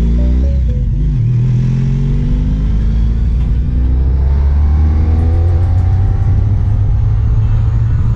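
Honda ST1300's V4 engine through a Delkevic aftermarket exhaust, heard from the rider's seat. The engine note shifts in the first second, then its pitch climbs steadily as the motorcycle accelerates.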